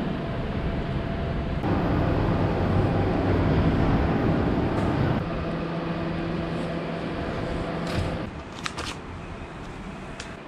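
A vehicle's motor running with a steady hum, loudest for a few seconds near the start, then a single low steady tone that cuts off about eight seconds in; a few sharp clicks follow.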